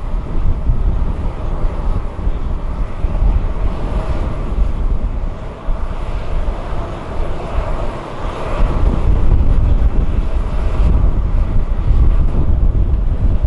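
Boeing 737-800 jet engines (CFM56-7B turbofans) running, heard over heavy wind buffeting on the microphone. The engine sound swells and gets louder about two-thirds of the way through.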